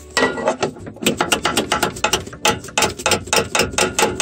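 Socket ratchet wrench clicking quickly as a bolt is turned, several clicks a second with a couple of brief pauses.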